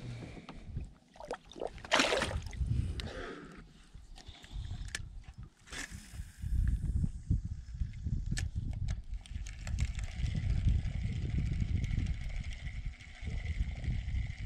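Water sloshing against a kayak with wind rumbling on the microphone, and a sudden rush of noise about two seconds in. From about halfway, a steady high whine of a fishing reel winding in a topwater lure, with scattered clicks.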